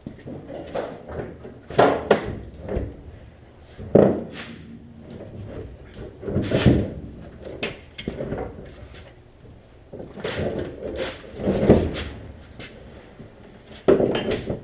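Irregular metal clunks, knocks and scrapes of a Chevy Nova door being worked loose and lifted off its hinges once the hinge pins are out; the loudest knocks come about four seconds in and near the end.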